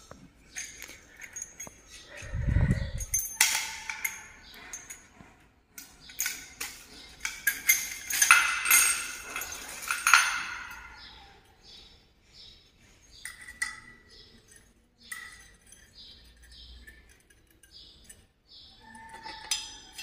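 Handling noise from ceiling fan parts during assembly: scattered light clinks of the fan's small metal fittings, a dull thump a couple of seconds in, and a busier stretch of rustling and scraping through the middle.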